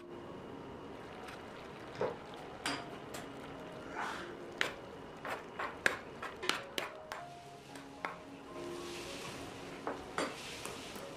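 Metal spoon clinking and scraping against a cooking pot as food is stirred, about a dozen irregular clinks, over soft background music. A hiss like sizzling rises about three-quarters of the way in.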